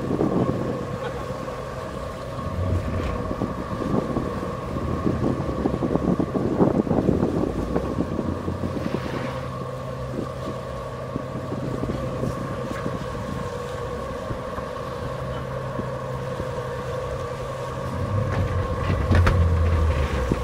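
Boat engines running with a steady hum while the boats lie alongside each other, and wind buffeting the microphone. The engine sound swells near the end.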